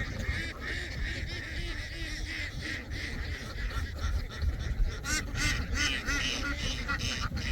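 A large flock of domestic ducks calling together, many overlapping quacks in a continuous chorus.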